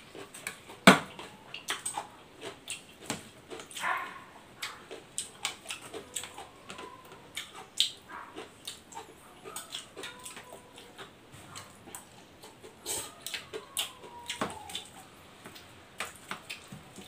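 Mukbang eating sounds: a fork and spoon clicking and tapping irregularly against a bowl, a plastic container and a plate, with chewing between, one sharper clack about a second in.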